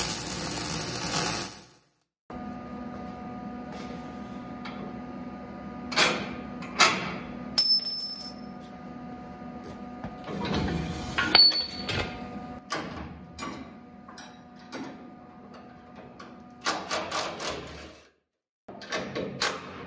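Electric welder tack-welding steel square-tube brackets onto a car body's rear bumper mounts. A burst of welding arc opens, and a run of short tack-weld bursts comes near the end. In between, clicks and knocks of metal being handled sound over a steady hum.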